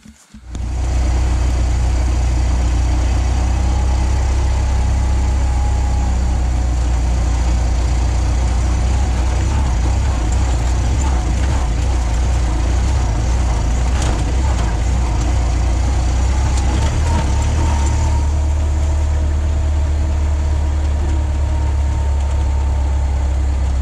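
Model T Ford driving, its engine running steadily under a heavy low rumble of road and running noise, with a faint whine that drifts slowly in pitch.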